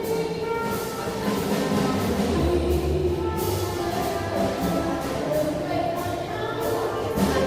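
Orchestral music with held notes that change pitch every second or so.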